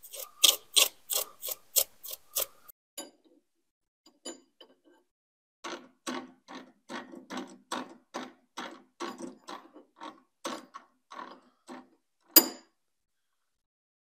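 Three-jaw lathe chuck being turned with a chuck key while its jaws are changed, the scroll clicking about three times a second in two runs with a short pause between. Near the end comes one much louder, sharp metal clack.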